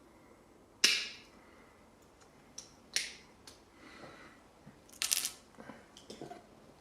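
Sharp metallic clicks and light taps as the retaining clip is worked off the back of a Euro cylinder lock with small tools. There are three louder clicks, the loudest about a second in, and a quick cluster of clicks near the end.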